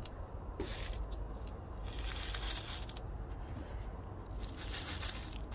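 Granular potting grit poured into a planter around succulents and pressed in by a gloved hand: a gritty, rattling hiss in a few separate pours, for top-dressing the freshly planted pot.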